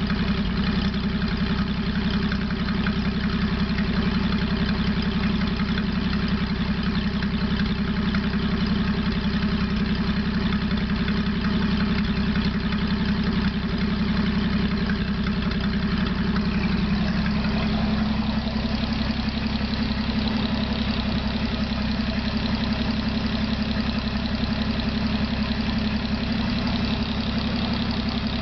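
Studebaker Champion flathead six-cylinder engine of an M29C Weasel idling steadily on a test stand, on its first run after a complete rebuild.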